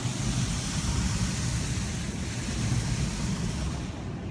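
High-pressure rinse jets of an automatic car wash spraying water onto the car, a steady rushing hiss heard from inside the cabin over a low rumble. The hiss eases near the end.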